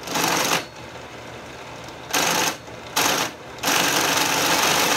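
Benchtop drill press running with its bit fed into a clamped metal bar: four loud bursts of the bit cutting metal, the last and longest near the end, with the motor running steadily between them.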